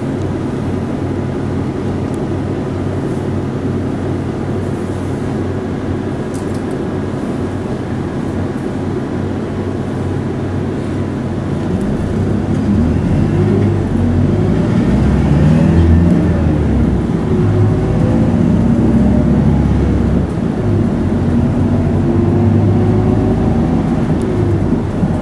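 Hino Blue Ribbon city bus's diesel engine heard from inside the passenger cabin: idling steadily at first, then about halfway through the bus pulls away and the engine grows louder, rising and falling in pitch as it accelerates through the gears.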